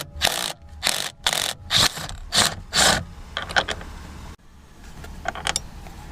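Impact drill with a T55 Torx bit driven in short bursts, about half a dozen in the first three seconds, working loose a steering wheel's center bolt. A few light clicks follow.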